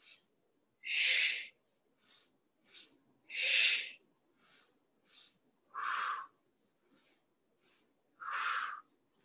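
A woman's forceful exhalations in time with Pilates side kicks: four loud breaths out, about one every two and a half seconds, each with two short, hissing breaths between them.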